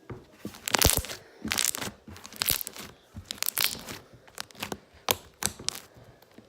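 Glossy, thick foam slime with foam beads being squeezed and stretched by hand, making an irregular run of clicks and crackles.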